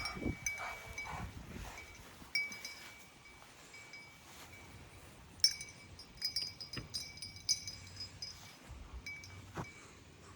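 Light metallic jingling and tinkling of dog collar tags, irregular small clinks with short ringing tones, the sharpest clink about five and a half seconds in.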